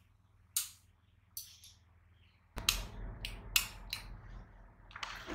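About eight short, crisp clicks and paper rustles at a desk, irregularly spaced, over a low steady room hum. The hum gets louder about two and a half seconds in.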